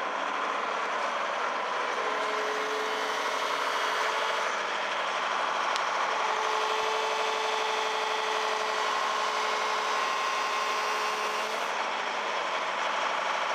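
A heavy machine's engine running steadily while the excavator's upper structure is lifted off its swing bearing. A steady whine comes in twice over the engine, the second time for about five seconds.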